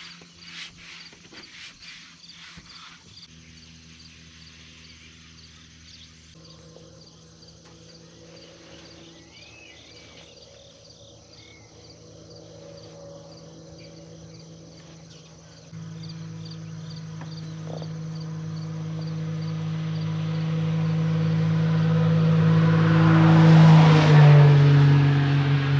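An engine running with a steady drone that jumps louder about two-thirds of the way in and keeps building, its pitch dropping slightly near the end. Insects chirp with a fine regular ticking in the first half.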